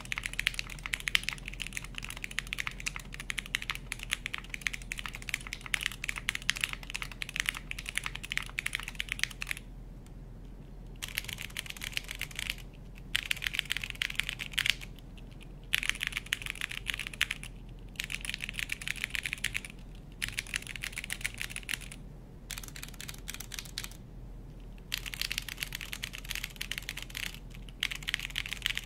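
Typing on a TKD Cycle 8 mechanical tenkeyless keyboard: rapid keystrokes in runs of several seconds, broken by short pauses of about a second.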